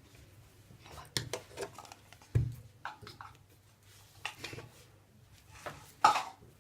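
A utensil clinking and knocking against a container in irregular short strokes, with a dull thump a little before halfway and a sharper clatter near the end.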